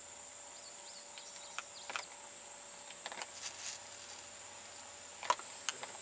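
Faint outdoor ambience with a steady high-pitched insect drone, a few short chirps early on and several faint clicks.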